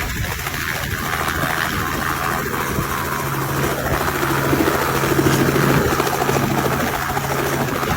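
Helicopter running in flight, a steady noise with a low hum.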